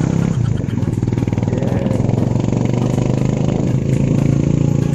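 A small motorcycle-type engine running steadily under way, heard from the passenger seat of the open-sided vehicle.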